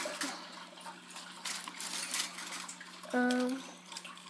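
Light rustling and clinking of small objects being handled, with a short hummed tone about three seconds in, over a steady electrical hum.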